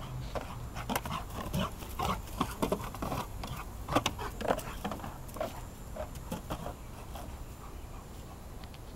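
A dog moving about close by, with a run of irregular clicks and rustles that is busiest in the first five seconds.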